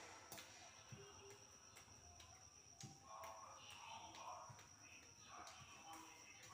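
Near silence: room tone with a faint steady high whine and scattered faint ticks.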